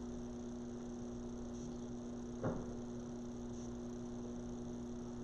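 Steady electrical mains hum, with one brief soft tap about two and a half seconds in.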